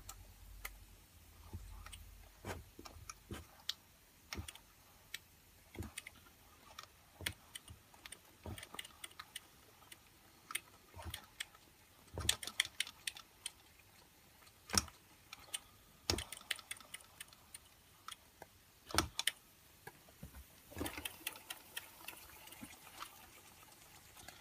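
Irregular light clicks and taps, one every second or so, a few of them louder, with a run of quicker clicks near the end.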